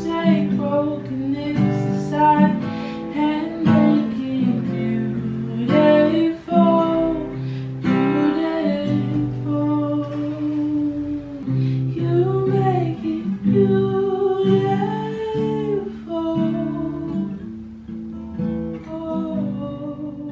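A woman singing a slow song while strumming a cutaway acoustic guitar, with some long held sung notes.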